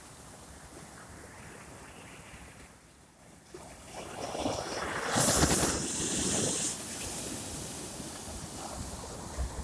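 Small waves breaking and washing up a sandy beach, a steady surf rush that swells loudest about halfway through.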